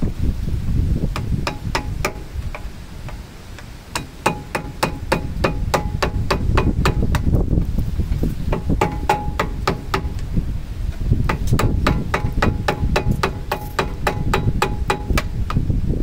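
Hammer blows on a metal punch held against a Ford Ranger's front brake caliper: a long series of sharp metallic strikes, each with a short ring. They come a few at a time at first, then at two or three a second with brief pauses.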